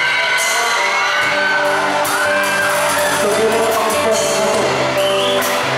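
Live band playing a Thai pop-rock song, with a male singer over electric guitars, keyboard and a drum kit with cymbals.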